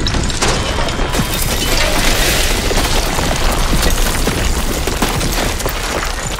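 Simulated earthquake rumble with the clatter and crash of falling bricks and rubble from collapsing houses: a continuous low rumble under many small sharp impacts, with a louder rush of crashing debris about two to three seconds in.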